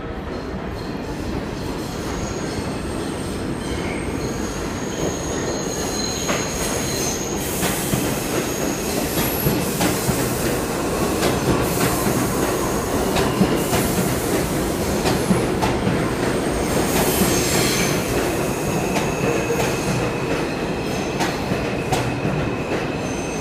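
An R142 subway train pulling into an underground station: a steady loud rumble of steel wheels on rail with high-pitched wheel squeal and repeated clicks as the wheels cross rail joints. It is loudest about halfway through as the cars run past and eases slightly near the end as the train slows.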